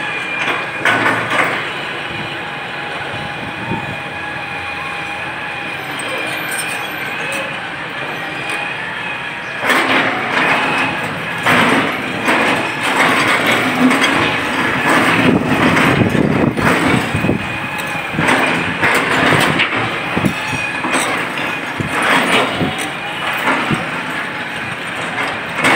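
Long-reach demolition excavator running, with a steady whine. From about ten seconds in it gets louder, with clattering and repeated knocks as the boom breaks into the concrete building.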